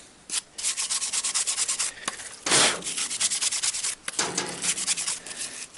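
Quick, repeated rubbing strokes on the removed heater fan motor of a GAZelle as it is cleaned. A brief louder swish comes about two and a half seconds in, then the strokes resume.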